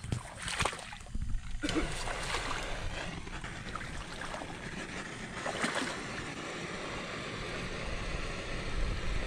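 Wind buffeting the microphone, with the rustle and snap of leafy branches now and then as someone pushes through dense brush on foot.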